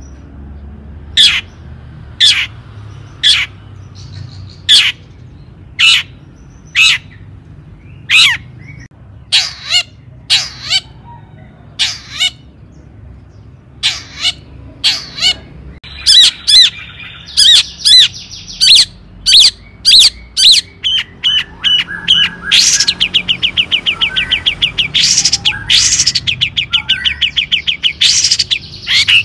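Long-tailed shrike (cendet) singing: sharp, harsh single calls about once a second, which grow denser after about halfway and turn into a fast chattering run of many notes a second near the end.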